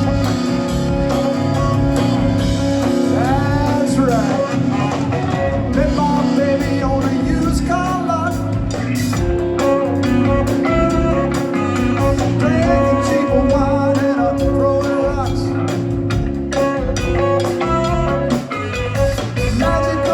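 A song with a band: singing over guitar and drums at a steady beat.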